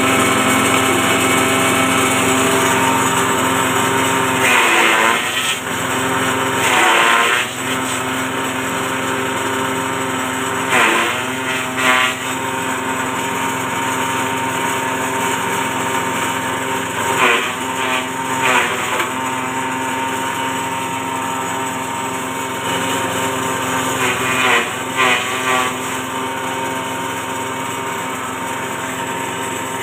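Small petrol engine driving a grass chopper (mesin cacah) running steadily at high speed. Several times the pitch dips briefly under a louder chopping rush as grass is fed into the blades.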